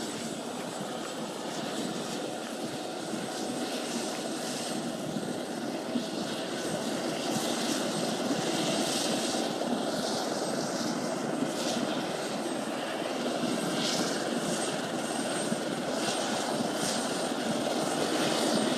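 Helicopter turbine and rotor running with a steady rushing noise that grows gradually louder.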